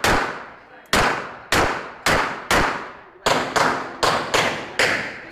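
Pistol shots fired in quick succession, about ten in all at roughly two a second, each a sharp crack that trails off quickly. The shots come a little faster toward the end.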